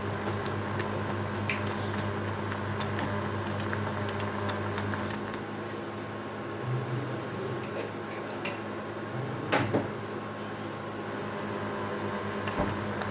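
Kitchen utensil sounds: light scattered clicks of a spoon against a cooking pot over a steady low hum, with two sharper knocks about ten seconds in.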